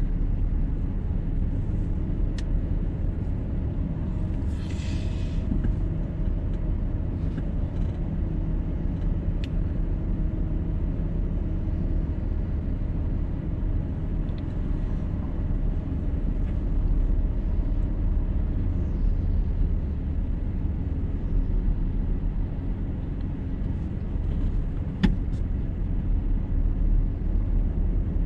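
Car driving on a road: a steady low rumble of tyres and engine, with a short hiss about five seconds in and a sharp click near the end.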